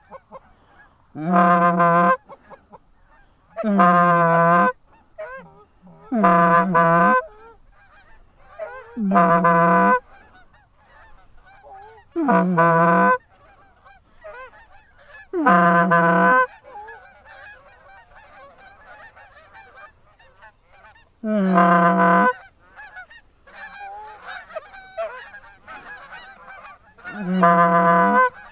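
Goose call blown by a hunter to draw in geese: eight long, loud honking notes spaced a few seconds apart, with fainter wavering goose calls in between.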